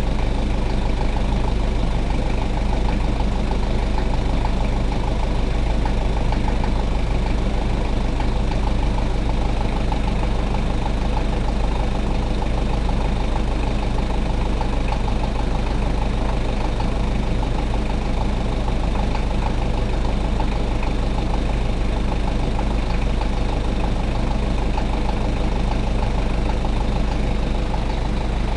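Toyota 1KZ-T 3.0-litre four-cylinder turbo-diesel engine idling steadily, run to show an abnormal noise the owner has noticed in the engine.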